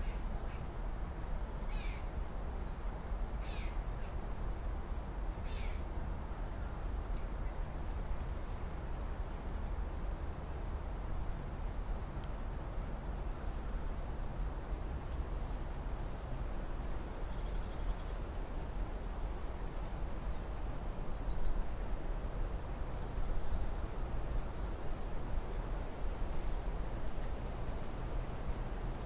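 Outdoor ambience: a steady low rumble under a thin, high, falling chirp that repeats evenly a little more than once a second. There are a few faint crunches in the first few seconds as a raccoon chews dry dog food.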